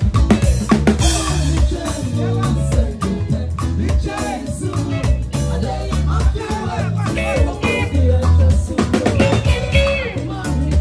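Live band playing upbeat music: a drum kit with cymbals and rimshots keeps a steady beat under bass guitar, keyboard and electric guitar.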